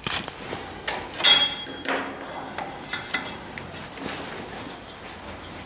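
Small metal parts and tools clinking and tapping on a Ford 800 tractor's clutch pedal linkage as it is adjusted by hand. A few sharp, ringing clinks come about a second in and just before two seconds, followed by lighter taps and rattles.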